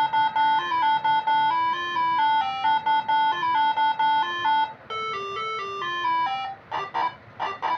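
Moreno MS7 melody horn module playing a tune through the horn in quick, stepped electronic notes with a hard, buzzy tone. About five seconds in a new phrase begins, and near the end come a few short, rougher blasts.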